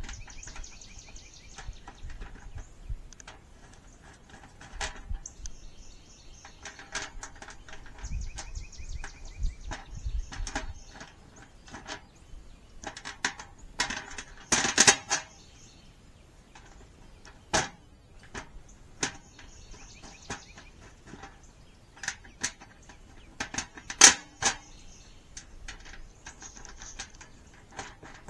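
Small metal screws and wing nuts clicking and clinking against the metal panels of a raised garden bed as they are fitted by hand. Scattered sharp taps, with louder clanks at about 15 and 24 seconds in.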